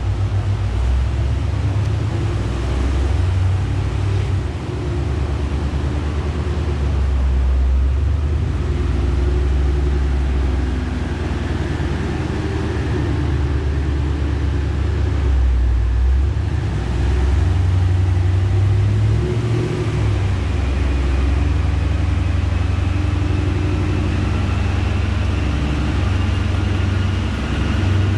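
Ford 4.6L three-valve V8 of a Mustang GT with long-tube headers and Borla axle-back mufflers, running with the car on a chassis dyno's rollers. The engine note stays fairly even, with a faint whine that slowly rises in pitch from about halfway through as speed builds.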